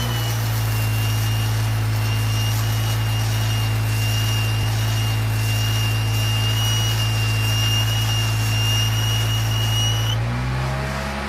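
Jeep Wrangler's 2.5-litre four-cylinder engine running at 1500 rpm under the load of an engine-driven on-board welder as a stick-weld bead is run, with a steady high whine over the engine. The load and the whine stop about ten seconds in, when the weld ends.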